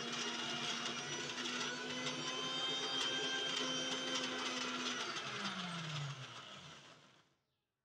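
Electric mixer grinder running at speed, grinding a wet paste of shallots, garlic, ginger and spice powders. A little after five seconds in the motor winds down, its hum falling in pitch, and it stops about seven seconds in.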